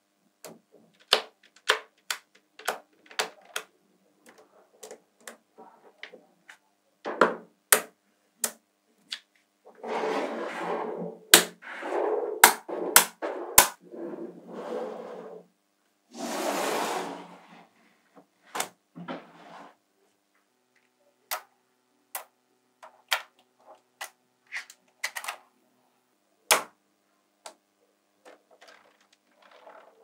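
Small magnetic balls clicking and snapping together as strips of them are pushed into place, with sharp clicks scattered throughout. Two longer stretches of rattling, about ten and sixteen seconds in, as the balls slide and roll against each other on the tabletop.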